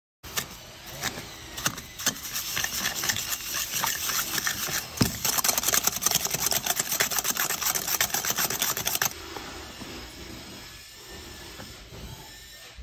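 Electric hand mixer running at speed, beating wet cookie-dough ingredients in a bowl with rapid clicking and clatter. It stops about nine seconds in, and a quieter stretch follows.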